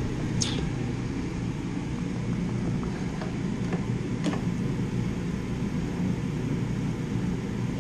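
Steady low fan-like hum with a few faint light clicks, about half a second in and again past four seconds.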